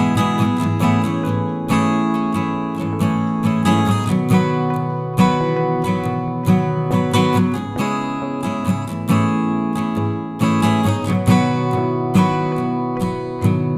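Background music: acoustic guitar strummed and picked in a steady rhythm.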